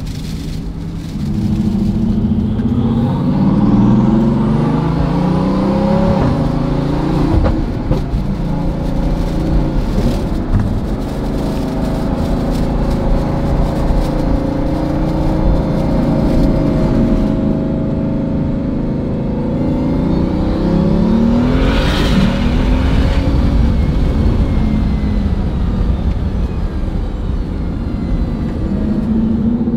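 Bugatti Veyron's quad-turbo W16 engine running through a newly fitted Opus exhaust, pulling up in revs several times as the car accelerates, its pitch climbing and then dropping back between pulls.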